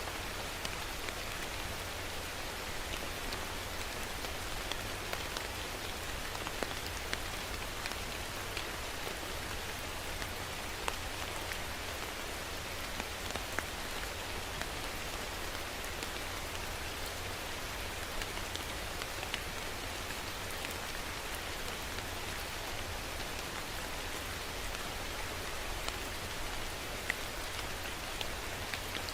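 Steady rain falling, a continuous patter with many small distinct drop ticks.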